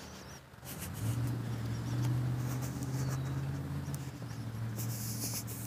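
A steady low motor hum that comes in about a second in and eases off near the end, with a brief rustle of noise shortly before it fades.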